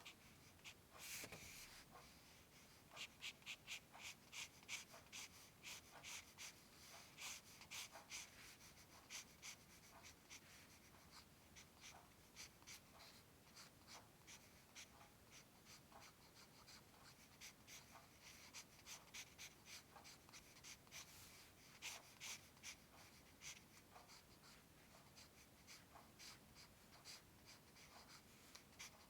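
Faint scratching of a drawing tool on paper: runs of rapid short strokes with brief pauses between them.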